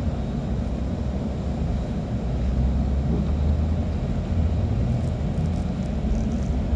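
Steady low rumble of a bus on the move, heard from inside the cabin: engine and tyre noise, growing a little louder about two and a half seconds in.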